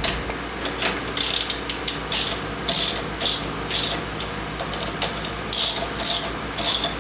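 Hand ratchet wrench clicking in short strokes, about two a second with a pause in the middle, as bolts on the motorcycle's handlebar controls are run in and tightened.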